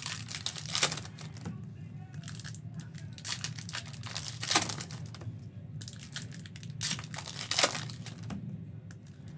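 Foil trading-card pack wrapper crinkling and tearing as it is worked open by hand, in irregular crackles with the loudest about a second in, midway and near the end.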